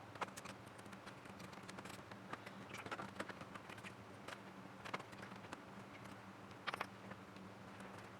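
Irregular small clicks, taps and light scrapes of hands and tools handling the console's plastic and metal parts, over a steady low hum.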